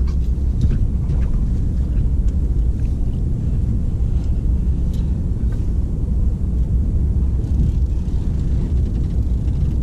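A steady low rumble, with a few faint light clicks.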